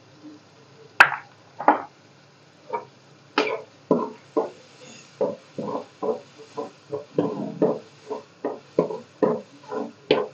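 Spoon stirring and scraping thick tomato masala around an aluminium kadai, a quick run of short strokes about two or three a second, beginning with a sharp knock against the pan about a second in.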